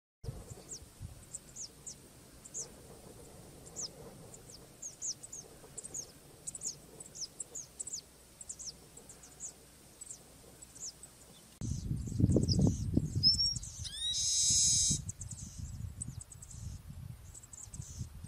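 Open-grassland ambience: many short, high, falling chirps from small birds or insects repeat every fraction of a second. About twelve seconds in, a low rumble comes up. Around fourteen seconds in, a loud, buzzy call about a second long follows a short rising whistle. The jabiru stork itself is not heard.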